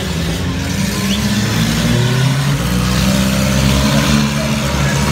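Engines of several compact demolition-derby cars running and revving together, their pitch rising and falling as they accelerate and back off.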